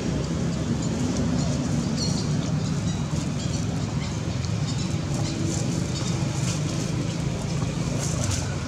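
Steady outdoor background noise under a constant low mechanical hum, with faint, brief high ticks and chirps scattered through it.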